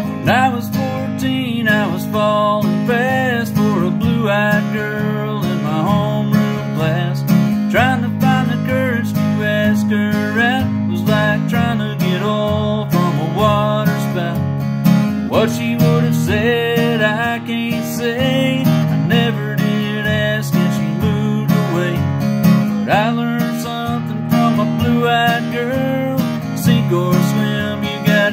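A man singing a country song while strumming chords on an acoustic guitar, his voice carrying the melody over the steady strumming.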